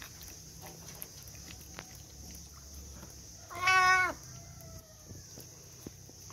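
A cat meows once, loud and about half a second long, a little past halfway, with a fainter falling tail after it. Around it are small scattered clicks of the cat chewing fried fish bones, over a steady high insect shrill.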